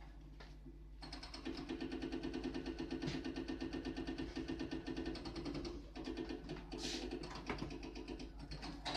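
Hydraulic breaker on a JCB backhoe loader hammering rapidly against a brick wall. It starts about a second in, stops briefly around six seconds, then resumes less evenly with a few separate knocks.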